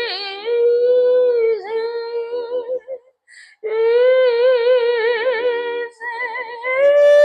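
A woman singing the word "easy" slowly in long, wavering melismatic phrases with vibrato. There is a brief breath about three seconds in, and the line steps up to a higher held note near the end.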